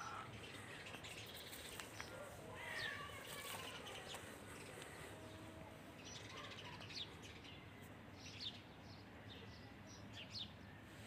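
Faint bird chirps: a few short, high calls scattered through, over a low background hush.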